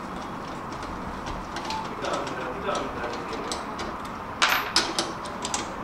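Hand tool clicking and clinking against metal bolts on an ATV's front bumper, with a few short, louder metallic knocks about four and a half seconds in.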